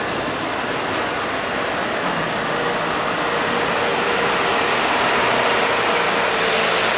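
Intermodal freight train rolling past close by: a steady noise of wheels on rails that grows a little louder toward the end. A faint steady high tone joins in about two and a half seconds in.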